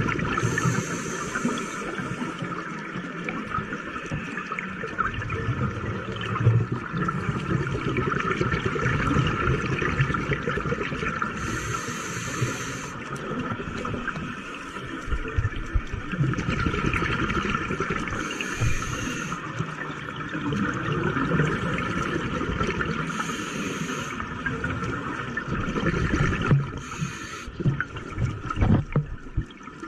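Scuba diver's regulator breathing heard underwater: a sharp hiss of inhalation every several seconds, over a steady rush of exhaled bubbles.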